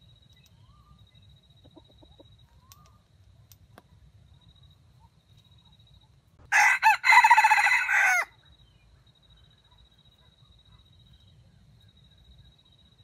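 Red junglefowl rooster crowing once, a short crow of under two seconds that breaks twice near its start before running on and stopping abruptly.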